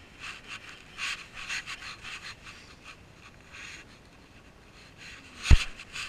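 Rustling and scraping as someone moves about in the dark, in short bursts of a few a second. About five and a half seconds in comes one sharp knock, the loudest sound here.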